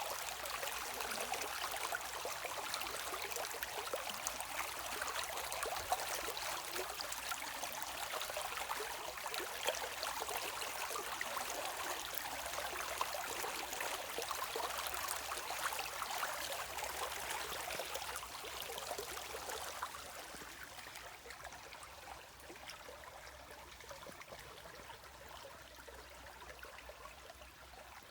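River water running gently, a steady rushing with many small trickling splashes. It grows quieter about twenty seconds in.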